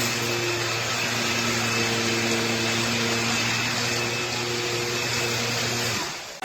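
Bissell PowerClean cordless stick vacuum running steadily, a motor whine over a steady hum, stopping near the end.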